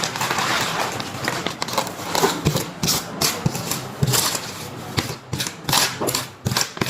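Small hard objects being handled: irregular clicks and knocks in quick succession, over a steady hiss for about the first two seconds.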